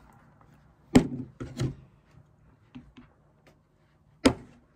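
A few short sharp knocks and taps: a loud one about a second in, a few softer ones after it, and another loud one near the end.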